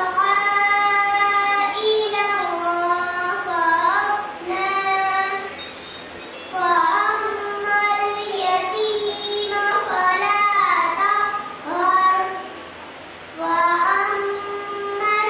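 A young girl's solo voice chanting an Islamic recitation into a microphone, in long held, ornamented melodic phrases, with two short pauses for breath.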